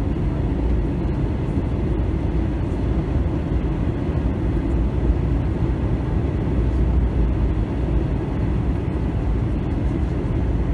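Steady low rumble of airflow and jet engines heard inside the passenger cabin of an Airbus A321.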